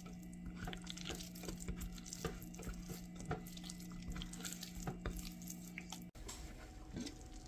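Kitchen food-prep handling: scattered light clicks and taps over a steady low hum that cuts off about six seconds in.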